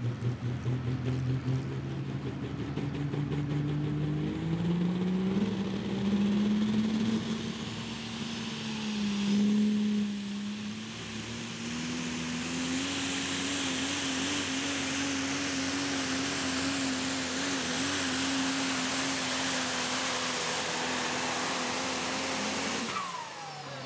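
Diesel pickup truck at full throttle pulling a weight-transfer sled. The engine climbs in pitch over the first dozen seconds, then holds high and steady, with a high whistle coming in about nine seconds in. The engine note drops away just before the end.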